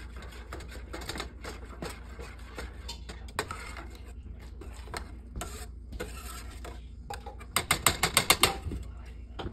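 Metal spoon clicking and scraping against a stainless steel saucepan while stirring a thick melting cheese sauce, with a quick run of rapid clicks, about ten a second, near the end.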